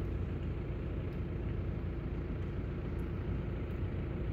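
Steady engine and road rumble heard inside a car's cabin while driving.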